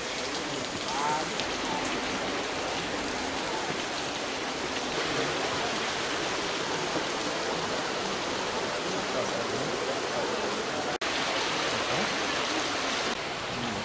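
Stream water flowing over rocks: a steady rush that changes abruptly a few times as the sound cuts between takes.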